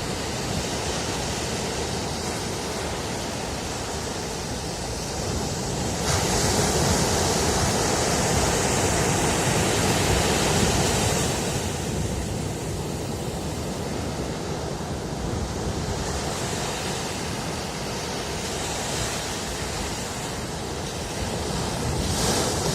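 Ocean surf washing in: a steady rush that swells louder about six seconds in, eases back a few seconds later, and rises again near the end.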